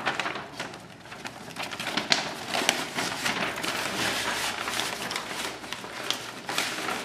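Rustling handling noise with many short light clicks and a few sharper knocks, from hands working with the meat, paper and wire.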